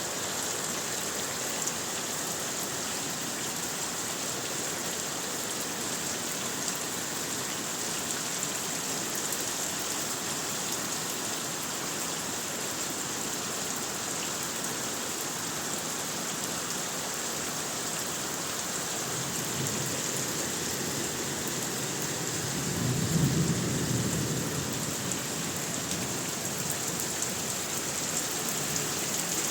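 Heavy rain falling steadily, with a low roll of thunder that swells up after the middle, is loudest about three quarters of the way through, then dies away.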